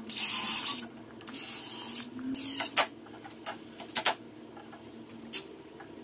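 Cordless drill boring a pilot hole into a dense manzanita branch in two short bursts, the bit cutting into the hard wood. A few sharp clicks and knocks of tool handling follow.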